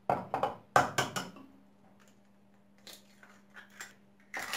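Eggs being cracked open over a bowl: a quick run of sharp cracks and knocks from the shells in the first second or so, then a few light clicks and one more knock near the end.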